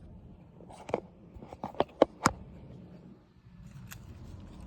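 A series of sharp clicks and knocks, about five in quick succession in the first half and one more near the end, over a faint low rumble.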